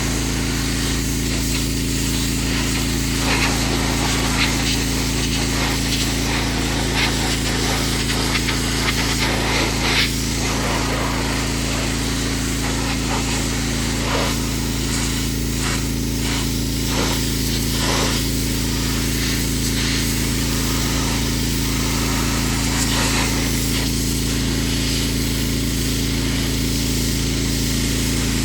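Pressure washer running steadily: a constant motor hum under the hiss of the water jet, with brief louder bursts of spray here and there.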